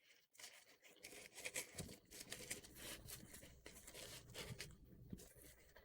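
Faint handling noise of a mesh running shoe being turned over in the hands: soft rustling and scratching with scattered small clicks.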